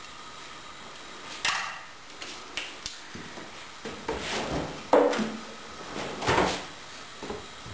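Kitchen clatter: a string of knocks and clinks as a frying pan is set back down on a gas hob and a glass jar is handled, the loudest two about five and six and a half seconds in.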